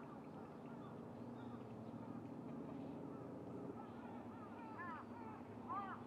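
Great cormorant colony: low, rough croaking calls. About four to five seconds in, a bird's short rising-and-falling calls join, several a second.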